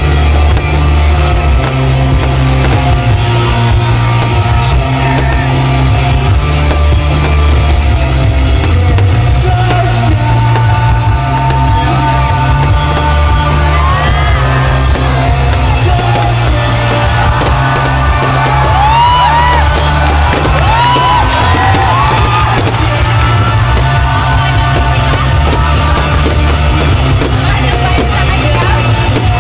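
Loud rock music over a sound system, with a heavy bass. Through the middle of the stretch, a crowd yells and whoops over it.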